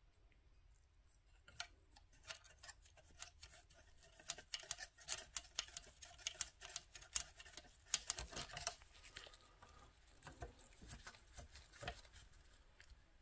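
Faint, irregular small clicks and taps of hands handling an old tube radio chassis and small tools on a workbench, busiest in the middle stretch.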